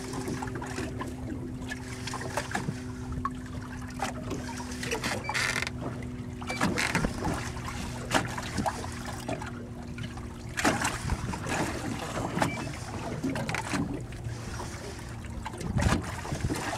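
Steady low hum of a boat's engine running at idle, with wind and water noise and scattered short knocks and clatters.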